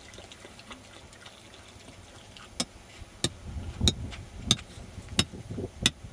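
Sharp clicks at an even pace, about three every two seconds, starting about halfway through, over a low uneven rumble.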